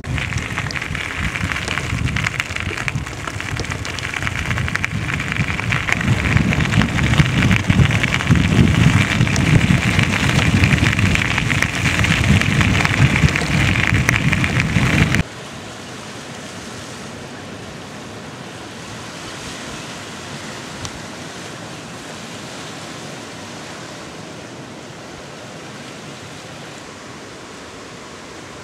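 Heavy wind buffeting on the microphone, growing louder, while moving along with a cyclist on a gravel road; it cuts off abruptly about halfway through and gives way to a soft, steady hiss.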